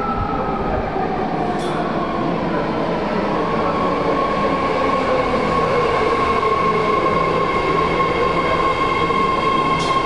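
Bombardier MOVIA BART train pulling in along the platform, its rumble overlaid by a steady high whine of several tones while lower tones slide gently down in pitch. Two faint clicks sound, one about two seconds in and one near the end.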